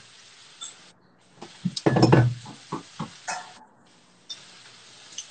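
Pots, pans and utensils clinking and knocking as they are handled at a kitchen stove. The clatter is irregular, with the loudest cluster of knocks about two seconds in.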